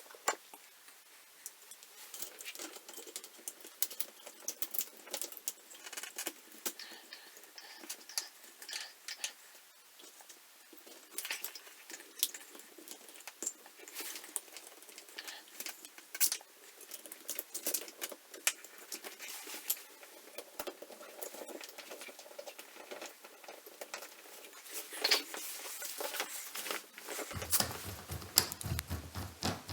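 Irregular light clicks and taps of small hard objects, scattered unevenly, with a few louder taps near the end.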